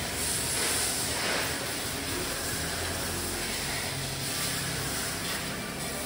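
Pressure washer spraying water against the underside and wheel well of a car: a steady hiss of spray, with a low hum underneath.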